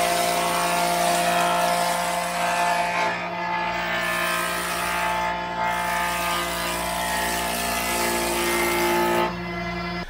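Woodworking jointer-planer running with a wooden beam being fed across its spinning cutterhead: a steady motor hum under a loud, even cutting noise, which drops away near the end as the pass finishes.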